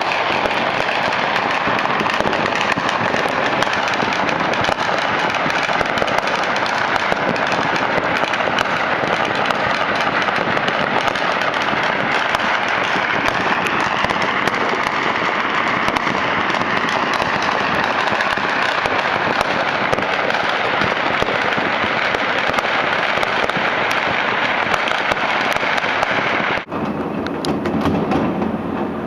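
City-wide barrage of fireworks and firecrackers, countless pops and bangs running together into a dense, unbroken crackle. About two seconds before the end it breaks off abruptly and comes back duller and lower.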